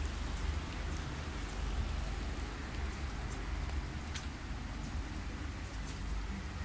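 Steady rain hiss, with scattered drop-like ticks and a low rumble underneath.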